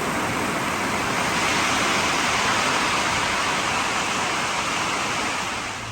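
Loud, steady rush of water noise with no let-up, cutting off suddenly at the very end.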